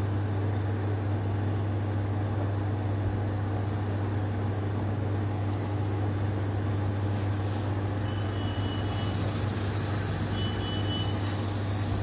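Techmate TMJ168SD soft-serve ice cream machine running with a steady low hum from its motors.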